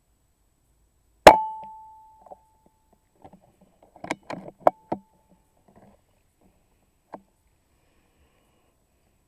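Air rifle firing a single shot about a second in: a sharp crack followed by a ringing metallic tone that dies away over a second or so. A few seconds later, a run of quieter mechanical clicks and knocks and one last click, typical of the rifle's action being cycled to load the next pellet.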